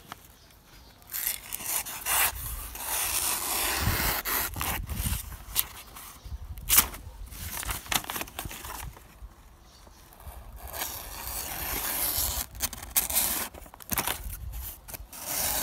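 Taramundi knife blade slicing through a sheet of lined paper: several scratchy, rasping passes of paper rustle with short pauses between, and a sharp click about seven seconds in. The edge, left unsharpened after hard use and batoning, still cuts the paper.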